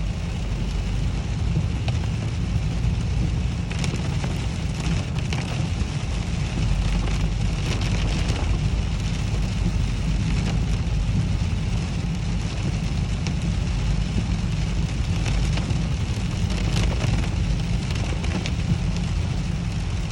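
Heavy rain falling and hitting surfaces, with many sharp drop hits over a steady low rumble.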